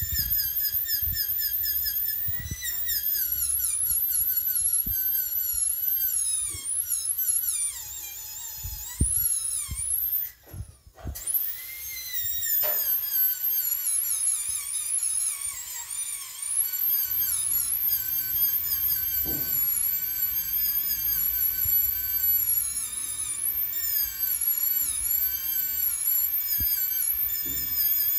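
High-speed air-turbine dental handpiece (NSK Pana-Max) whining, its pitch dipping and wavering as the bur is pressed against a model tooth to trim away excess composite from a finished class V restoration. The whine cuts out briefly about ten seconds in, then starts again.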